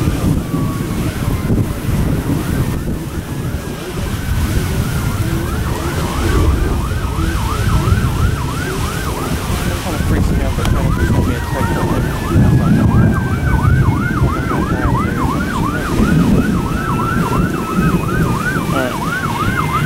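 Emergency vehicle sirens, several at once: slow rising and falling wails, joined about six seconds in by a rapid yelp of about three cycles a second. Under them is a loud, gusty low rumble.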